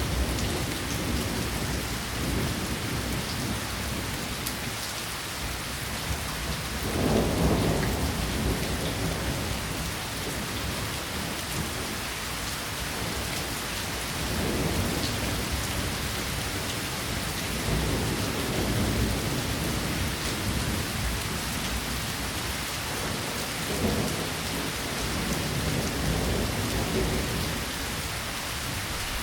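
Steady rainfall, a dense even hiss of drops, with low rumbles that swell and fade several times, the strongest about seven seconds in.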